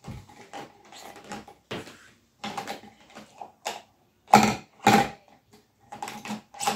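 Felt-tip markers being handled and sorted: a run of short, irregular rustles and clicks, with two louder knocks about four and five seconds in.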